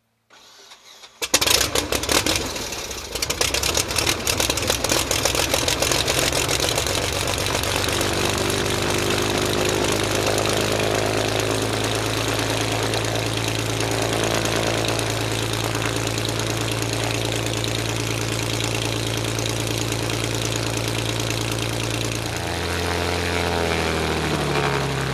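Lancair Legacy's six-cylinder piston aircraft engine starting: about a second in it cranks and catches with ragged, uneven firing, then settles into a steady idle. Near the end the engine speed changes and rises.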